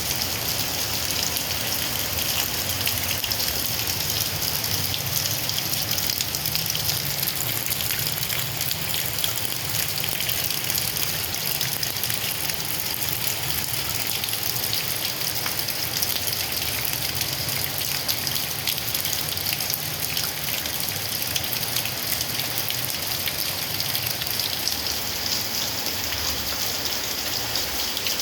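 Heavy rain pouring steadily: a dense hiss of countless fine drop impacts.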